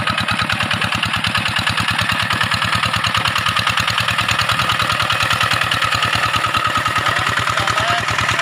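Single-cylinder diesel engine of a two-wheel hand tractor chugging steadily with a fast, even beat as it drives its steel cage wheels through a flooded, muddy rice paddy.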